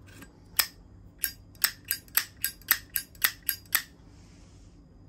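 Zippo lighter, made in 2000, with its hinged metal lid flicked open and snapped shut over and over: about eleven sharp metallic clicks at three or four a second, followed by a brief faint hiss.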